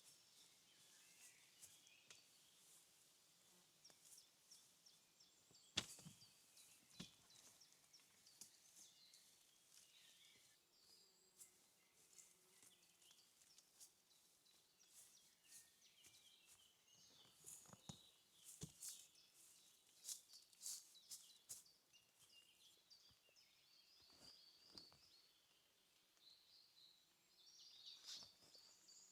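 Faint outdoor ambience with scattered small clicks and snaps, the sharpest about six seconds in, and faint high chirps toward the end.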